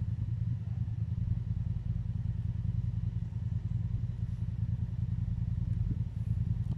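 Low, steady rumble of wind buffeting the microphone, flickering without building or fading.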